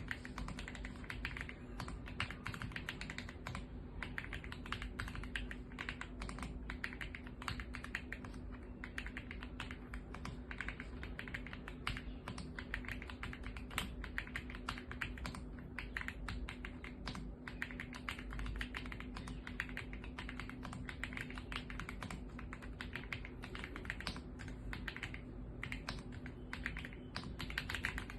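Fast, continuous typing on an AULA F75 mechanical keyboard with pre-lubed Reaper linear switches: a dense stream of key strokes.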